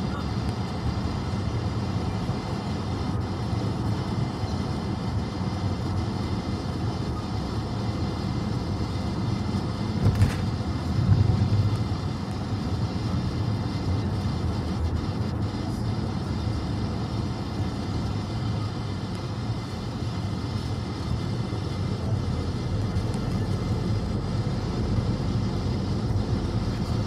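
Steady road and engine noise of a moving car heard inside its cabin, with a brief click and low thump about ten seconds in.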